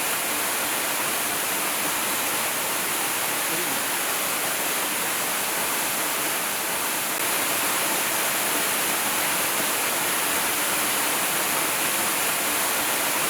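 Waterfall: a steady rush of falling water, a hiss weighted toward the high end. It gets slightly louder about seven seconds in.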